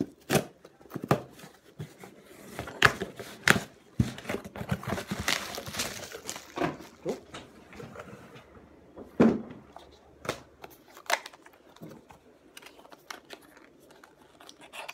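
A package being opened by hand: packaging tearing and crinkling, with scattered sharp knocks and clicks and a longer stretch of tearing about four to six seconds in.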